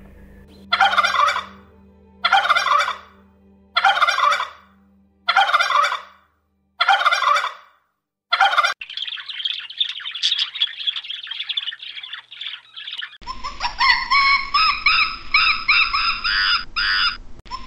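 A tom turkey gobbling: loud, harsh calls repeated about every one and a half seconds, then a longer rattling run. About four seconds before the end it cuts to high, rapid squealing calls from another animal.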